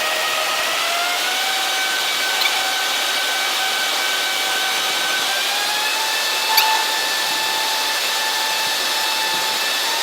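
Bank of large wind-test fans blowing at high speed: a steady rushing noise with a whine that steps up in pitch twice as the wind speed is raised. A short sharp tick about six and a half seconds in.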